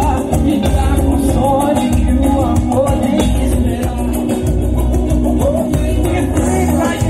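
Live band music played loud through a PA system, with a singer over a heavy, steady bass beat.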